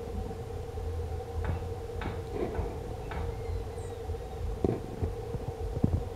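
A steady hum and a low rumble run throughout. Over them come a few faint clicks, one brief high chirp about four seconds in, and two dull thumps near the end.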